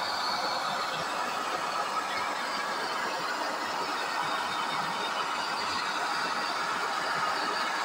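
Gas blowtorch flame blowing steadily against a fir plank, charring the wood's surface for a burnt-wood finish.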